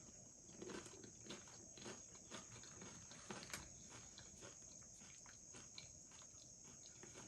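Faint chewing of beef nachos, with soft mouth clicks and small crunches coming irregularly about every half second over a steady hiss.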